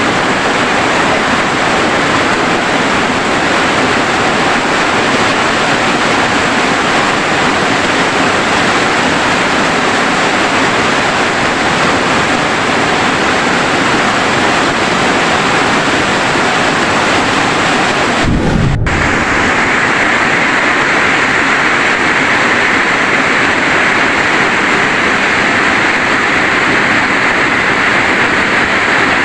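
Heavy, steady rain, a dense even hiss. About two thirds of the way in there is a brief low thump and a split-second dropout, after which the rain sounds slightly brighter.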